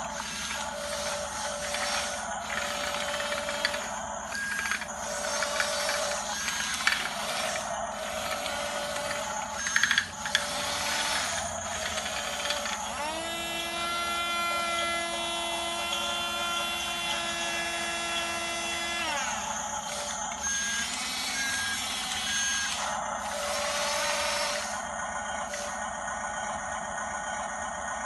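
Small electric drive motors and gears of a radio-controlled model bulldozer whining as it works, changing often. A steady higher whine is held from about halfway through for some six seconds.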